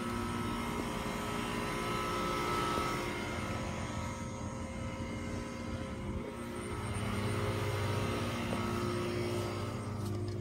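A steady mechanical drone with several held tones, swelling slightly twice.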